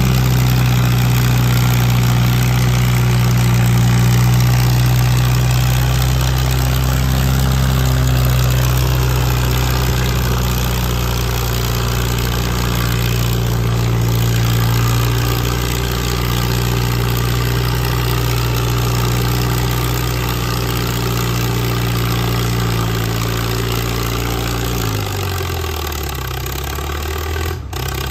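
Farmall Super H tractor's four-cylinder engine running steadily under load while pulling a weight-transfer sled. Near the end the engine slows and its pitch drops as the pull comes to a stop.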